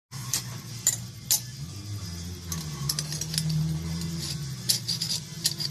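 Hand-forged iron slide-lock bolt being slid back and forth through its iron staples, giving a string of sharp metal-on-metal clinks and rattles.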